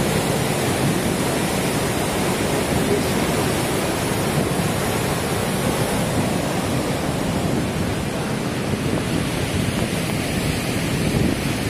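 A mountain river in flood after heavy rain, its brown water rushing over rocks in a steady, unbroken torrent.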